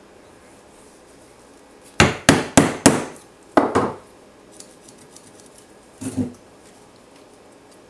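Claw hammer striking a thin metal pin driven into the end grain of a maple log: four quick sharp taps, then a few more a second later. A duller knock follows near the end.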